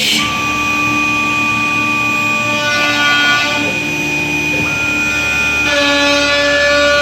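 Background music of sustained synthesizer chords, the held notes changing together every second or so.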